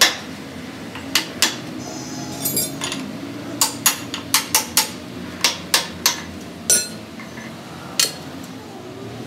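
About a dozen sharp metal-on-metal hammer blows on a steel drift set against a truck's rear axle spindle and brake assembly, coming singly and in quick runs of two or three, a few of them ringing briefly.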